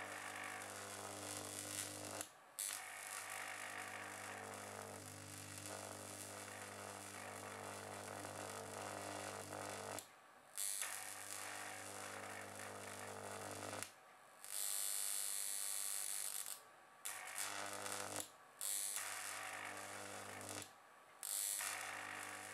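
Carbon arc burning between carbon rods, fed by an HID lamp ballast set to 162 W: a steady buzzing hum with a hiss over it. It cuts out for a moment about six times and comes straight back, and runs louder and hissier for about two seconds just past the middle.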